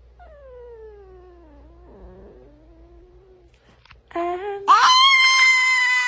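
A pet yowling in long, drawn-out calls. The first call slides slowly down in pitch over about three seconds. After a short pause comes a much louder call that leaps up and is held high near the end.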